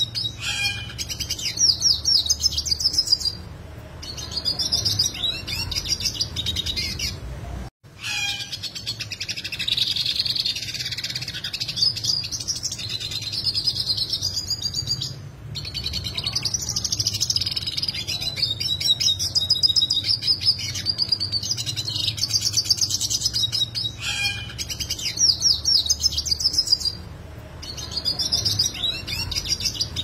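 Yellow siskin singing a long, complex, high-pitched twittering song full of fast, sharp trills, broken by a few short pauses. The song cuts out for an instant about eight seconds in. A faint steady low hum runs underneath.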